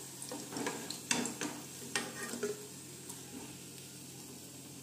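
Battered onion rings sizzling in hot oil in a frying pan as a steel spoon scoops them out. The spoon scrapes and knocks against the pan several times in the first two and a half seconds, then only the sizzle goes on.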